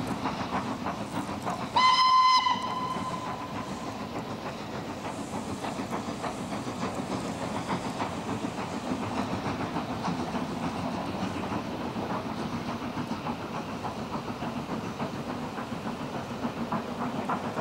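Steam locomotive hauling a train of coaches sounds one short whistle about two seconds in. The train then runs past with a steady running noise.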